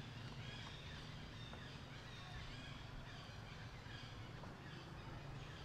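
Faint outdoor ambience: a steady low hum with scattered faint, short high chirps.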